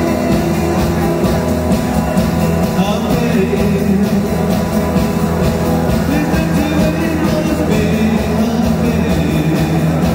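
Live rock band playing electric guitars, bass guitar and a drum kit, loud and steady throughout.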